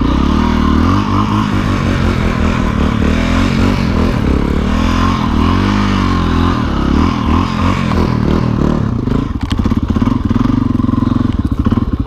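Dirt bike engine running as the bike rides through deep snow. The engine pitch rises and falls as the throttle is worked.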